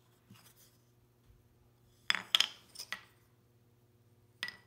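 Sharp, ringing clacks of small hardwood barens being picked up and set down on a wooden workbench: three or four close together about halfway through and two more near the end, over a faint steady hum.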